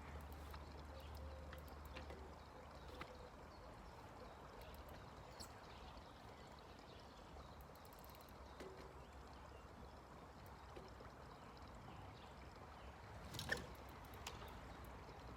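Near silence: faint outdoor background noise with a few faint ticks, and one short sharp click about 13 seconds in.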